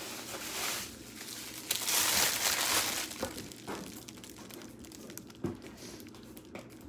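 Packaging crinkling and rustling as items are handled out of a cardboard box, loudest for about a second and a half near the middle, then quieter scattered taps and rustles.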